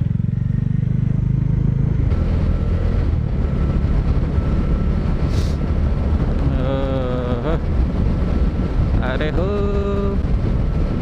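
Motorcycle engine running at road speed under a steady low rumble of wind on the microphone. About six seconds in, and again near the end, a short pitched sound rises and then holds briefly.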